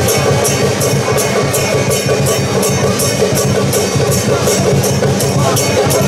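Music with drums and a steady beat, a bright crashing strike about twice a second over sustained pitched instruments.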